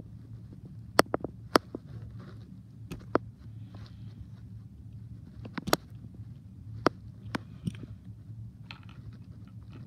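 Irregular sharp clicks and faint scraping of a small tool and fingers working on a toy train's circuit board, picking glue off the wires, over a steady low hum.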